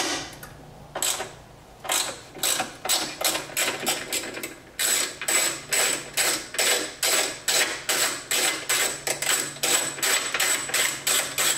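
Hand ratchet wrench clicking in quick, regular strokes, about two to three a second, as bolts are backed out.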